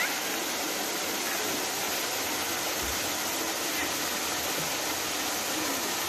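Steady rush of a waterfall spilling down a rock face into a pool, with a short rising chirp right at the start.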